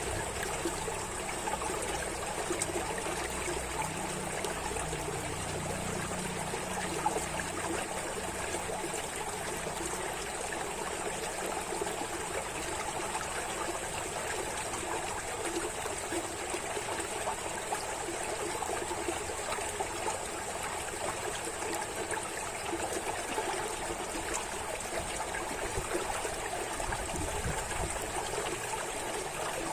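Water trickling and burbling steadily like a small stream, an even rushing flow with no breaks.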